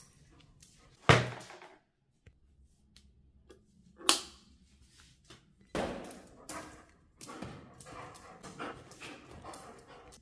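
A dog moving about on a tiled floor, with a few short, loud sounds: the loudest about a second in, others at about four and six seconds, then a run of smaller scuffling sounds toward the end.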